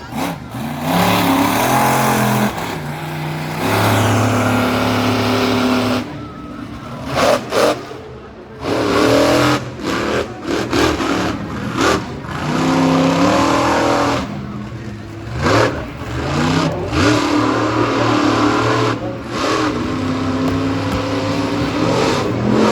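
Monster truck engines revving hard in repeated rising and falling runs, with a quieter, choppier stretch about a third of the way in.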